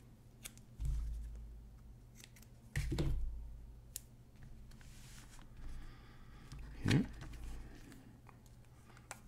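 Thin electrical tape being pulled off its roll and torn, with a soft rasp and small clicks, while a cassette shell is handled, giving a few soft knocks.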